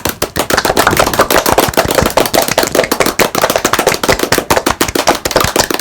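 Rapid unbroken string of sharp bangs, about ten a second, like automatic gunfire.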